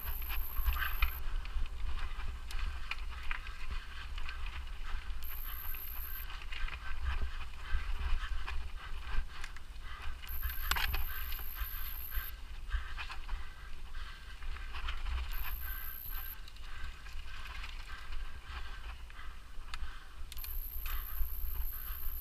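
Mountain bike being ridden over a rough forest trail: steady wind rumble on the microphone, with the chain and frame clicking and rattling over the ground. A faint high whine comes and goes about every five seconds.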